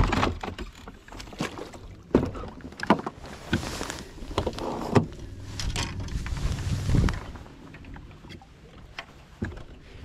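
Irregular knocks, thumps and clatter from someone moving about a bass boat's deck and handling fishing rods, the loudest knock right at the start.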